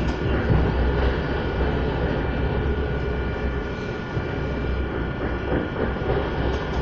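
Passenger train running at speed, heard from inside the carriage: a steady low rumble and running noise with a constant high whine over it.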